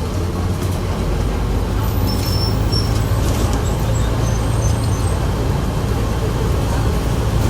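Volkswagen 17.230 OD bus running, with a steady low drone from the drivetrain and the differential growling loudly. A few faint high squeaks come over it about halfway through.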